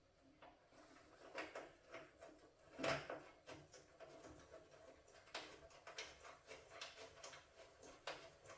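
Faint, scattered clicks and light knocks of hands fitting a fog light assembly and threading its mounting bolts in by hand, with one louder knock about three seconds in.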